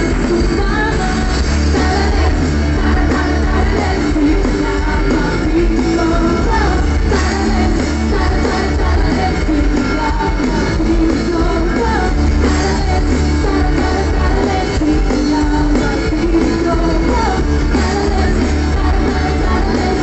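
Live band concert played loud over a PA: a woman sings lead over the band, with heavy bass.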